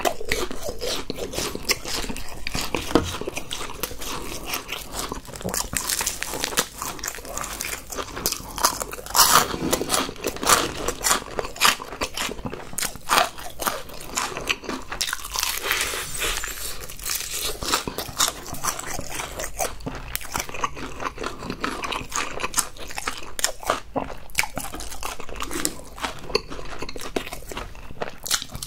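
Close-miked crunching and chewing of crispy fried chicken: bite after bite of the crisp coating, the crunches coming thick and fast.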